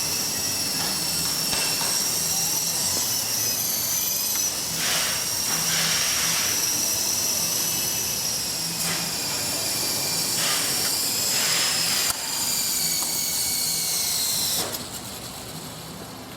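Electric motors and rotor blades of a Double Horse 9101 RC helicopter running as a steady high-pitched whine, its pitch wavering a little, with a few soft swells of air noise. It drops quieter near the end.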